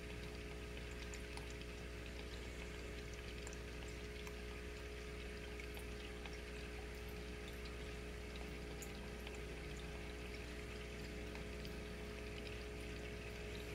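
Steady trickling and bubbling of aquarium water from the tank's airline aeration, over a constant low pump hum, with scattered small pops.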